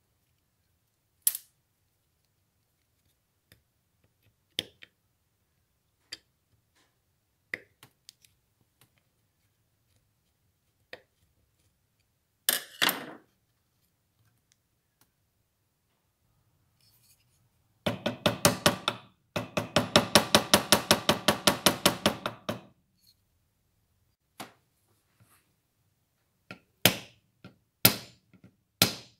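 Scattered clicks and light knocks of hands and a screwdriver working the screws of the metal vial plate on an old wooden spirit level. A run of fast, even clicks, about eight to ten a second, lasts some four seconds in the middle.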